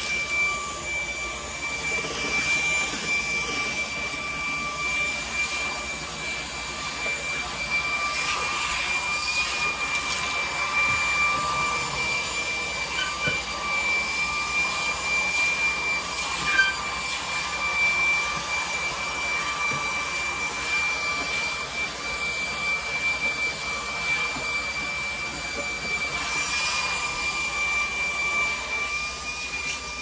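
Stick vacuum cleaner running steadily: an even, high motor whine over a rushing air hiss, with one brief knock a little past halfway.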